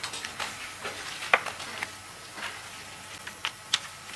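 Paper rustling with scattered short clicks and crackles, a few sharper ones, as document pages are handled and turned near a desk microphone, over faint steady room hiss.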